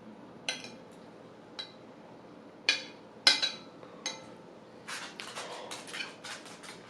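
Cutlery clinking against a plate, several separate sharp clinks, then a quicker run of short clinks and scrapes from about five seconds in.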